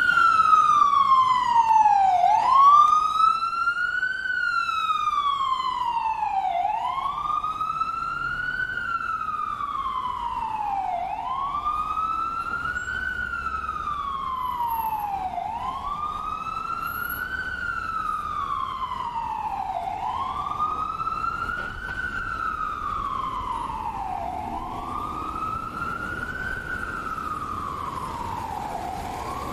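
Ambulance siren in a slow wail, its pitch rising and falling about once every four seconds, slowly growing quieter.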